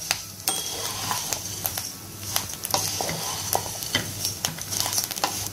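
Wooden spatula stirring egg-coated puffed rice in a frying pan over low heat: a dry rustling scrape of the grains with many short clicks of the spatula on the pan, over a light frying sizzle. The rice is being toasted until crisp.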